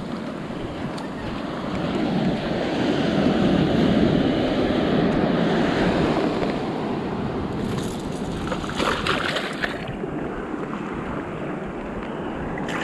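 Ocean surf washing among shoreline rocks, swelling a couple of seconds in and then easing off.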